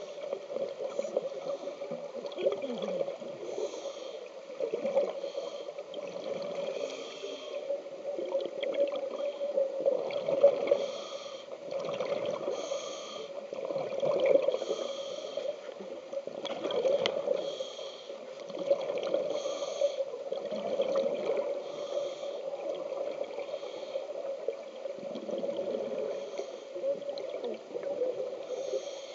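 Scuba regulator breathing and bubbling exhalations heard underwater through a camera housing, coming in irregular bursts every couple of seconds over a steady hum.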